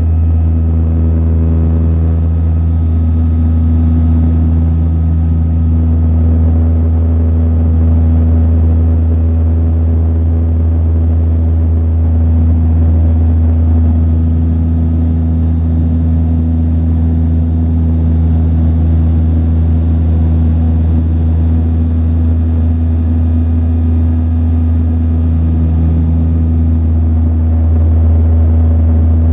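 Cabin drone of a Saab 340B's two General Electric CT7 turboprops and their propellers, a loud steady low hum with a throbbing propeller tone, heard from inside the passenger cabin.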